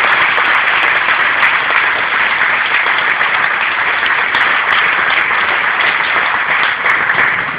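Stadium crowd applauding steadily.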